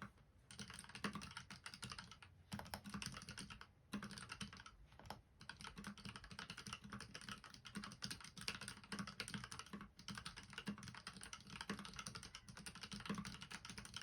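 Typing on a GK61 mechanical keyboard with Gateron Red linear switches, spray-lubricated and dampened with sound-absorbing foam. It is a fast, continuous run of key clacks broken by a few brief pauses.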